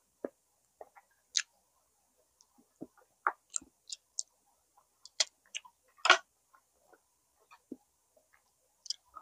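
Close-miked eating sounds of someone chewing barbecue pork baby back ribs: irregular wet clicks and mouth smacks, the loudest about six seconds in.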